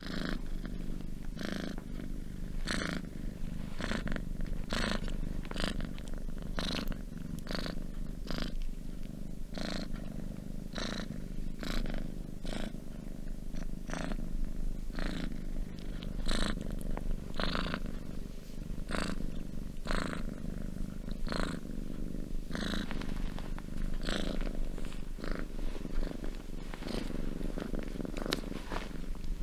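Domestic cat purring steadily: a continuous low rumble, with a breathy rasp about once a second as the cat breathes in and out.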